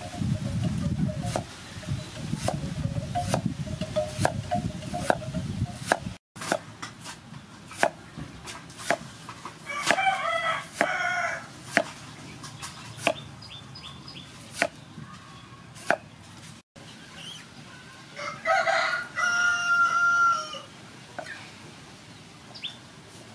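Cleaver slicing through bamboo shoot onto a wooden chopping board, a sharp knock about once a second, with a low rumble over the first six seconds. A rooster crows twice, about ten seconds in and again near the end.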